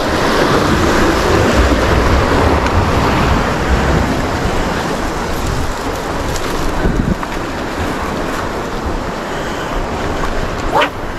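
Sea waves washing against the rocks at the foot of a cliff, with wind buffeting the microphone.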